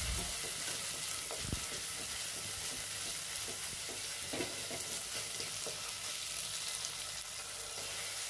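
Onions, ginger-garlic paste and tomato sizzling in oil in a clay pot as they are stirred with a wooden spatula, with a few soft strokes of the spatula against the pot.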